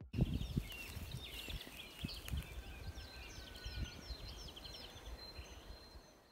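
Several small birds chirping and singing in quick runs of repeated, gliding high notes, over a low rumble with scattered soft thumps that are strongest near the start.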